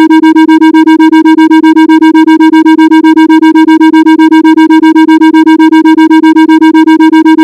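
Synthesised Rife-frequency tone, one steady pitch with a stack of overtones, pulsed on and off rapidly several times a second.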